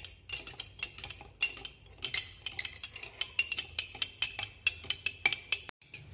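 Metal spoons clinking rapidly and irregularly against glass as salt is scooped and stirred into water in a glass jar, with a brief break near the end.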